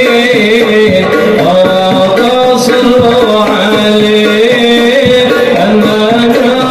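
Hadroh music: rebana frame drums beating a steady pattern under a sung sholawat melody.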